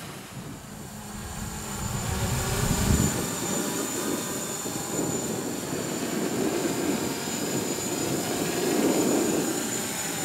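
MJX Bugs 3 brushless quadcopter in flight, its motors and propellers giving a steady high whine, with strong wind gusting over the microphone in low rumbles that swell a couple of seconds in and again near the end.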